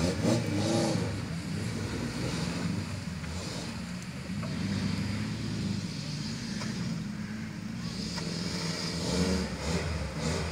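Off-road 4x4's engine running steadily while the vehicle sits in a creek bed, with brief voices of bystanders at the start and near the end.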